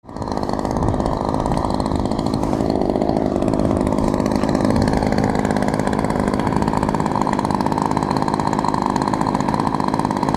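Single-cylinder two-stroke petrol engine of a model aeroplane, an NGH GT17, running steadily on the ground and turning its propeller. The engine is still being broken in.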